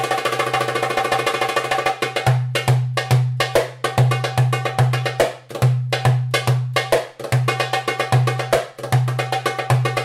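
Darbuka (goblet drum) played by hand: a fast roll of crisp strokes for about the first two seconds, then a rhythm of deep bass strokes, two to three a second, with sharp rim strokes between them.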